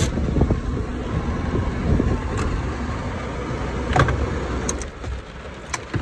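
Low, uneven rumble inside a small car on a wet, rough track in heavy rain, with a few short sharp knocks.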